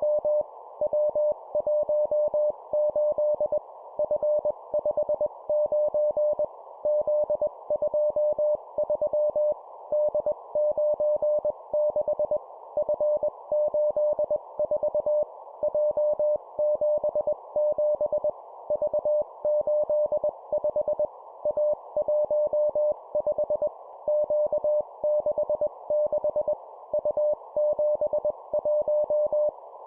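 Morse code (CW) at 20 words per minute: a single steady tone of about 600 Hz keyed on and off in dots and dashes, sent as three-character groups of a letter and two numbers, each group followed by a short pause. A faint hiss runs underneath.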